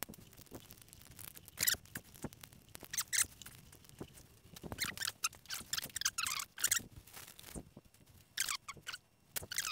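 Irregular short squeaky, crinkling rustles of plastic as a car wiring loom is handled and worked into corrugated split conduit.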